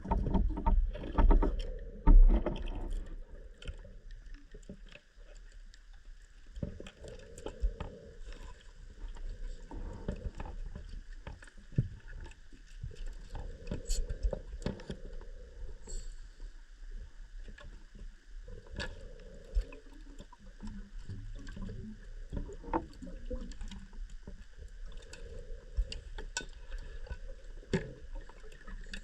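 Underwater sound on a cave dive: a steady low hum with scattered sharp clicks and a soft swell every five to six seconds, louder in the first few seconds.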